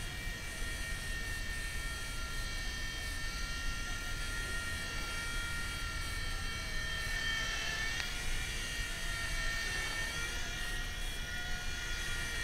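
WLtoys V911 micro RC helicopter hovering: a steady high-pitched electric-motor whine from its main and tail motors and rotors, the pitch wavering a little as the throttle changes, with a brief tick about eight seconds in.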